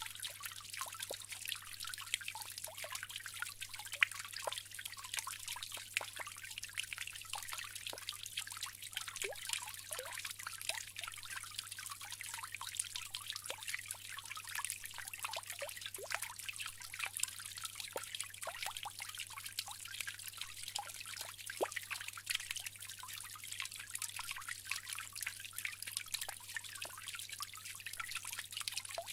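Water from a bamboo fountain trickling steadily into a basin, with many small drips and splashes.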